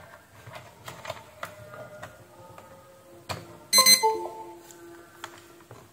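Light clicks of the cable being handled, then about four seconds in a short, sharp electronic beep followed by a few lower steady tones as the handheld barcode scanner is plugged into USB and powers up. Faint background music runs underneath.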